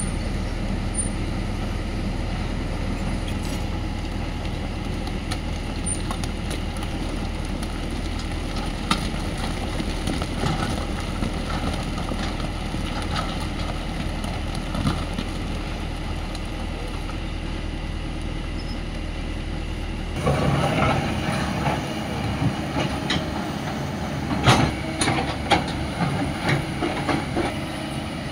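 Diesel engines of tracked excavators running with a steady low drone, with scattered knocks and clatter of rock being shifted. The knocks grow busier after an abrupt change in the sound about two-thirds of the way through.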